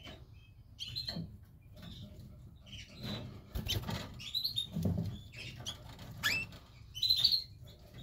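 Canaries giving short high chirps several times, with light rustles and knocks between them.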